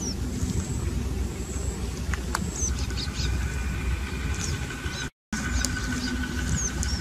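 Outdoor field ambience: wind rumbling on the microphone, with short bird chirps scattered throughout. A thin steady tone joins about halfway through, and the sound cuts out for a split second a little after 5 s.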